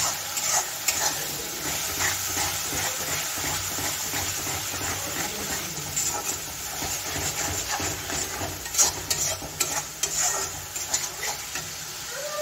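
Chopped onions and ground spice masala sizzling as they fry in oil in a metal kadai. A steel spatula stirs them, with repeated scrapes and clicks against the pan.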